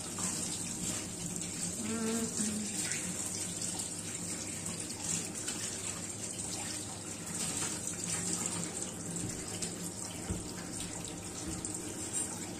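Kitchen tap running steadily into a stainless steel sink during hand dishwashing, with light clinks and knocks of crockery and pans being handled.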